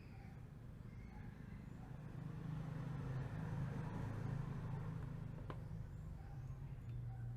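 A motor vehicle's engine rumbling, growing louder about two seconds in and then settling into a steadier hum, with one sharp click partway through.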